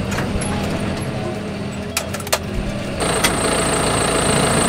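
John Deere tractor's diesel engine running, first heard from inside the cab. About three seconds in it is heard from outside the tractor, a little louder, with a steady high whine over it.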